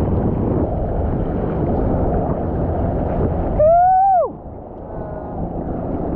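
Ocean water churning and sloshing around a GoPro held at water level, with wind on the microphone. About three and a half seconds in comes a short whoop, a voice rising then falling for under a second.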